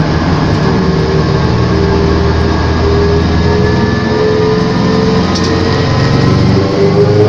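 Race car engine heard from inside the cockpit, running at a steady low speed with an even drone, its pitch beginning to climb near the end as the car picks up speed.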